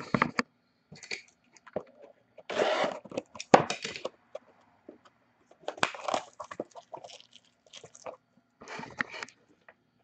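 Plastic shrink-wrap being cut and pulled off a trading card box, crinkling and crackling in short irregular spells.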